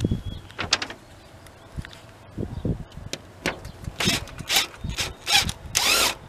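Makita cordless impact driver driving screws into a signboard in several short bursts in the second half. A few low knocks come before it.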